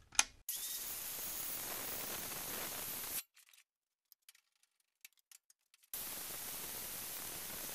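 Evolution 7-1/4-inch metal-cutting circular saw running with a steady hiss after a sharp click. It stops about three seconds in, and starts again a few seconds later.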